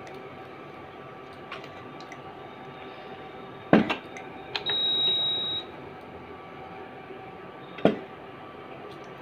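Cumin seeds frying in oil in a pan on an induction cooktop, a faint steady hiss. Two sharp knocks come about four and eight seconds in, and a high steady beep sounds for about a second between them.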